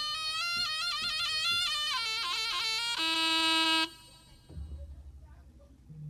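A reedy wind instrument plays a fast, ornamented melody that bends between notes and ends on a held note a little before four seconds in. Low drum beats follow near the end.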